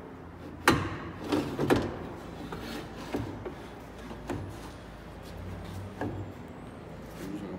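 Aluminium window template knocking and rubbing against a Ford Explorer's door frame as it is worked out of the window opening: a few sharp knocks, the loudest about a second in, over a low steady hum.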